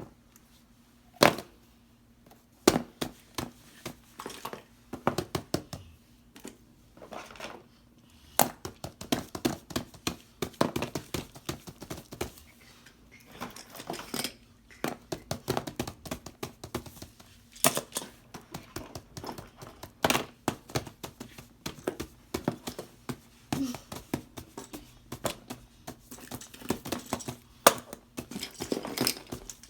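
Fidget toys being handled, with irregular clicks, taps and knocks of plastic pieces throughout.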